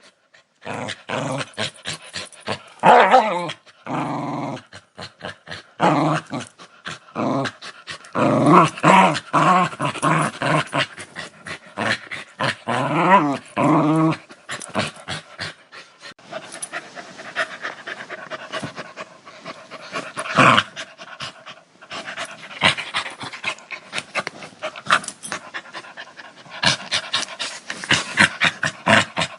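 A dog growling and snarling, in loud, wavering growls for about the first half. Then comes a quieter stretch of fast, rhythmic rasping breaths.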